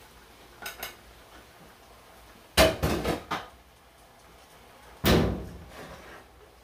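Metal pots and pans clanking as they are set down and handled on the stove: two loud knocks about two and a half seconds apart, the first followed by a couple of smaller knocks, the second ringing out briefly.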